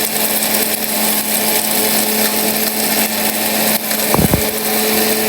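1000-watt mixer grinder motor running at full speed, grinding whole dried turmeric root in a stainless steel jug: a loud, steady whir with a steady hum under it. A brief low thump a little after four seconds in.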